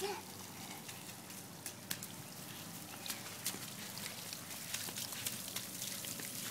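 Water spraying from a toy chameleon lawn sprinkler, its droplets pattering onto the grass as a faint, steady crackle of small ticks.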